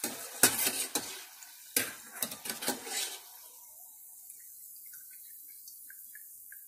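Stainless steel slotted skimmer scraping and clinking against a stainless pot of hot oil as fried balls are scooped out, a run of sharp strokes over the first three seconds. Then the oil sizzles faintly with small scattered pops.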